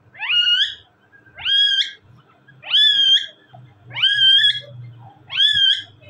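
Indian ringneck parakeet calling five times at an even pace, about one call a second; each call is a steep upward slide that levels off into a short held note.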